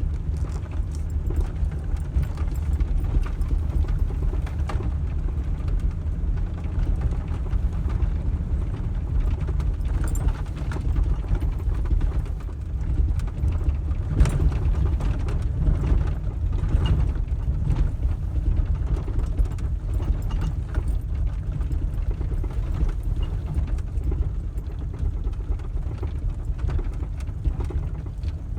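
Farm tractor engine running steadily under way, with frequent mechanical knocks and rattles over its low drone.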